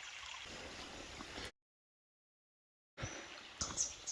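Steady rush of a forest stream. About a second and a half in it cuts off into dead silence, then gives way to quieter ambience with a few short, high bird chirps near the end.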